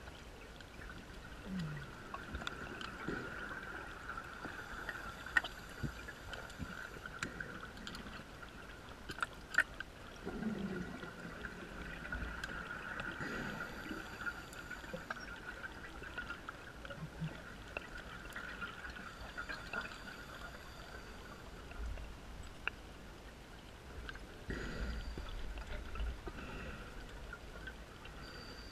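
Underwater gurgling of scuba divers' exhaled bubbles, coming in occasional louder swells, over a steady high hum with scattered clicks.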